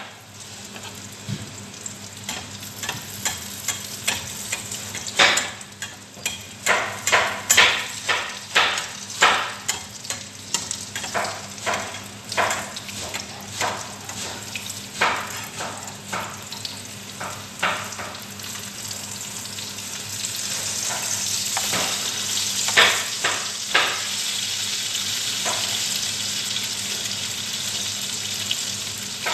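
Food sizzling in oil in a frying pan on a gas stove while a spatula stirs and scrapes it, making many short scrapes and taps against the pan. About two-thirds of the way in, the sizzle grows louder and steadier, with only a few more strokes.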